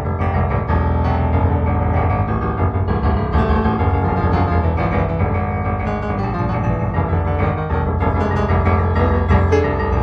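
Solo piano music, an improvisation, with a low bass held under changing chords.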